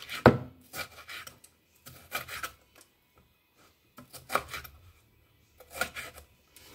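Kitchen knife chopping and scraping through diced red and green bell peppers on a wooden cutting board, in short groups of strokes with pauses between them.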